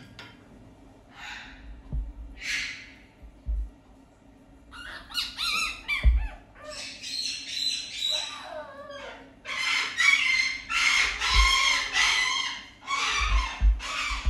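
Fennec fox giving high, squawking calls. They are faint and sparse at first, bend up and down in pitch from about five seconds in, and come in loud, rapid runs for the last few seconds. A few dull low bumps sound underneath.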